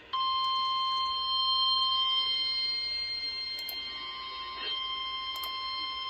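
NOAA Weather Radio warning alarm tone: a single steady 1050 Hz tone that comes on abruptly just after the start and holds unbroken. It signals that a warning broadcast, here a severe thunderstorm warning, is about to follow.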